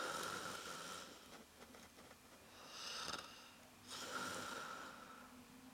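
A man snoring with his mouth open: three drawn-out snoring breaths, about two seconds apart.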